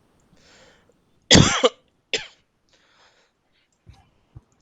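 A person coughing: a breath in, one loud cough, a shorter second cough right after, then a breath.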